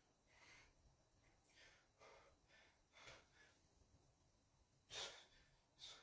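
Faint breathing of a man exercising: a series of short, quick breaths and exhalations, the strongest about five seconds in.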